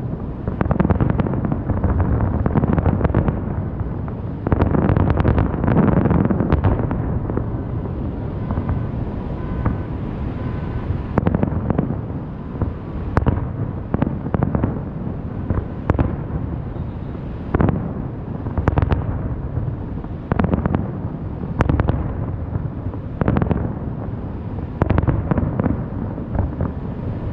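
Aerial fireworks going off in a long run of booms and sharp cracks, with a rapid barrage about five to seven seconds in and a low rumble between the bangs.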